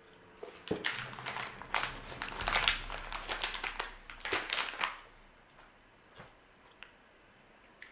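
Plastic candy bag crinkling and rustling in the hands as a candy is taken out: a dense run of crackles that starts about half a second in and stops about five seconds in.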